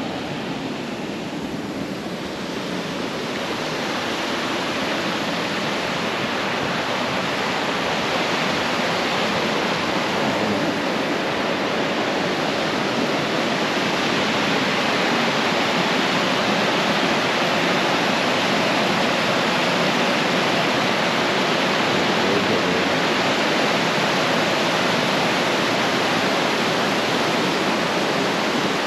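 Steady rush of a mountain river tumbling over rocks in small falls, McDonald Creek's cascades at Red Rock. It grows a little louder a few seconds in, then holds steady.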